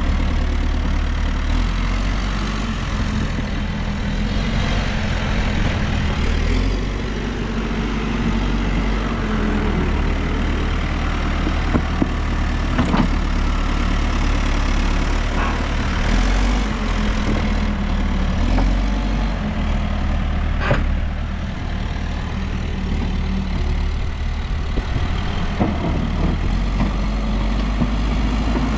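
New Holland backhoe loader's diesel engine running, its speed stepping up and down several times as the machine works, with a few sharp knocks now and then.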